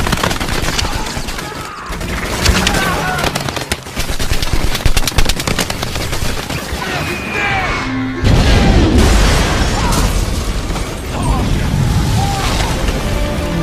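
War-film battle soundtrack: rapid gunfire and explosions over music, with shouting voices. A sudden loud blast comes about eight seconds in.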